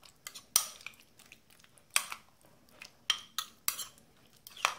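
Metal spoon stirring a yoghurt and chopped-vegetable mix in a ceramic bowl, clinking sharply against the bowl's sides several times at irregular intervals, with soft scraping between the clinks.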